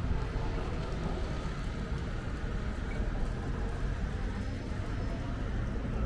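Wind buffeting the microphone in a low, uneven rumble, over street noise with passing traffic.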